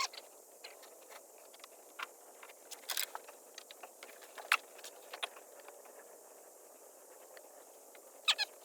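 Scattered light metallic clicks and clinks, with sharper ones about three, four and a half and eight seconds in, over a faint steady hiss.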